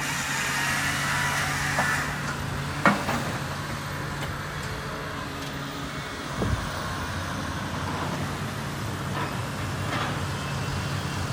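Heavy diesel logging equipment running steadily, with a sharp knock about three seconds in and a dull thump about halfway through.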